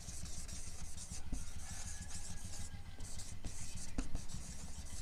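Marker pen moving across a whiteboard in a run of short writing strokes, with a low steady hum underneath.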